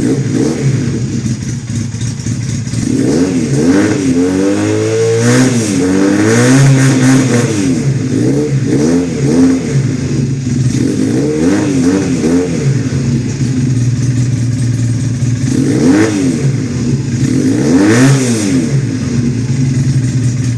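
Honda CBR450SR's air-cooled parallel-twin engine, slightly warm and fitted with a sport exhaust, idling and being revved in a series of short throttle blips that rise and fall in pitch.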